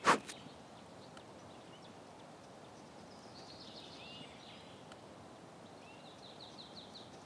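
A sharp thump right at the start, then quiet outdoor forest ambience with a few faint, scattered bird chirps and a short quick trill near the end.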